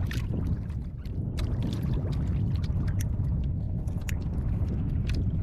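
Steady low rumble of wind and water around a small drifting outrigger canoe, with scattered small clicks and scrapes from hands handling fishing gear.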